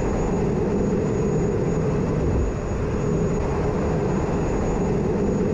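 Steady jet aircraft engine noise: a constant rumble with a thin, high steady whine above it.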